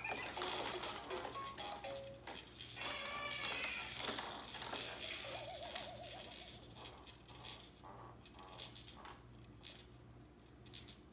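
Fisher-Price activity jumper's electronic toy tray playing short tunes and a warbling sound effect, with light rattling of its plastic toys. It fades quieter toward the end.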